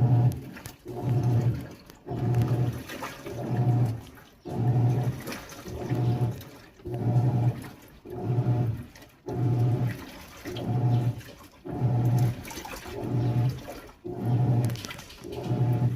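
Panasonic 19 kg top-loading washing machine agitating a load in its Jeans programme at the extra-low water level. The pulsator swings back and forth about once a second, each stroke a motor hum with water and clothes sloshing.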